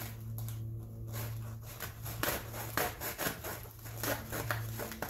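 A saw cutting through a foam model plane's nose in quick, rasping back-and-forth strokes, about two or three a second, starting a second or so in.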